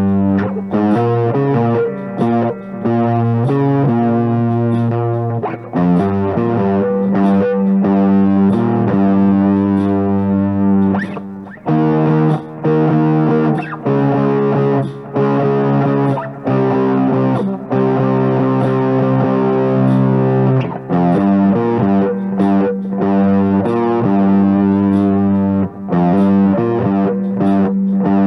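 Overdriven electric guitar, an Epiphone Les Paul Standard through a Flamma overdrive pedal, playing sustained chords and riffs with short breaks between phrases, over a faint backing drum track.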